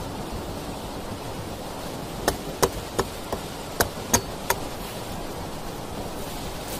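A series of about seven sharp wooden knocks over two seconds, starting about two seconds in, as a stick is worked by hand at the base of a log-and-leaf shelter, over a steady rushing background.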